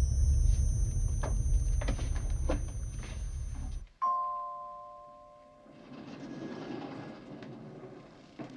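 Film sound effect of proton packs powered up and running: a loud, steady low hum under two high, steady whining tones, with a few clicks. It cuts off abruptly about four seconds in. An elevator arrival chime then rings once and fades, followed by a faint rushing noise.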